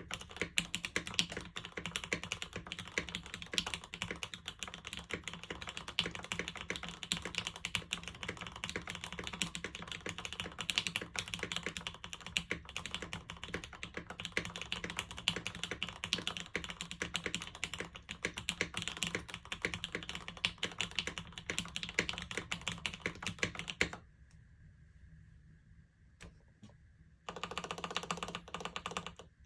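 Fast, continuous typing on a SINGAKBD Jaguar V1 tenkeyless mechanical keyboard. It is top-mounted with a thick 2 mm aluminium plate, lubed Gateron Oil King linear switches and GMK keycaps. Near the end the typing stops for about three seconds, then resumes.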